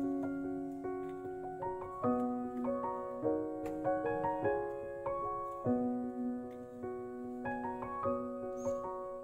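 Background music: a slow, gentle piano melody, its notes struck one after another.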